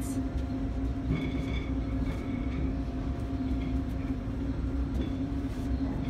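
A steady low mechanical hum with a rumble underneath, with a few faint high tones about a second in.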